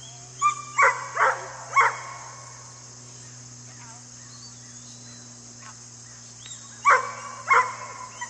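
Herding dog barking in short, sharp barks: four in quick succession in the first two seconds, then two or three more near the end, over a steady high insect drone.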